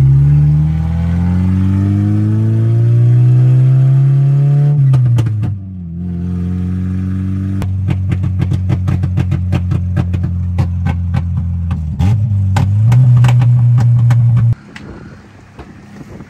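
Car engine pulling under acceleration, its pitch climbing for about five seconds, then dropping at a gearshift and running steady with a rapid clatter over it. Near the end it rises and holds again, then cuts off abruptly.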